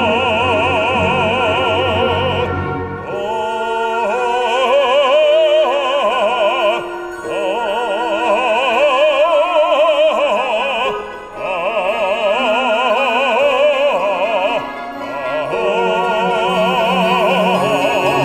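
A male operatic soloist singing long held notes with wide vibrato, accompanied by a Russian folk-instrument orchestra. The notes come in four phrases, with short breaks about every four seconds.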